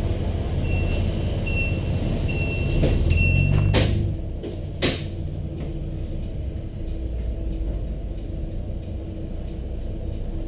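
Bus door-warning buzzer beeping four times, evenly spaced, then two sharp knocks about four and five seconds in as the doors shut. Under it the Volvo B7RLE's six-cylinder diesel engine runs steadily, louder just before the knocks and quieter after.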